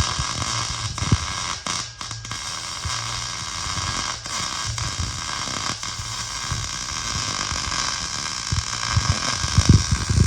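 Steady, loud hissing noise with a thin steady tone in it, and irregular low thumps underneath that come thicker near the end.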